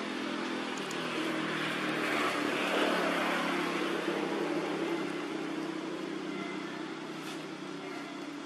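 Engine hum of a passing motor vehicle, swelling to its loudest about three seconds in, then slowly fading.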